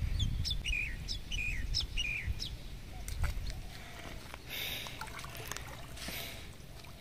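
A bird calling: a run of about five short, falling chirps roughly half a second apart. Two brief hissing noises follow later.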